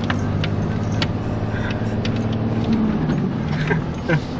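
Pickup truck engine running under changing throttle, its pitch rising and falling as the truck drives and turns on snow, heard from inside the cab, with scattered sharp clicks.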